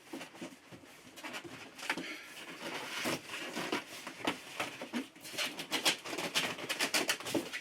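A 3D printer's cardboard box and packing pieces being handled and unpacked: irregular rustles, scrapes and light knocks, coming thicker in the second half.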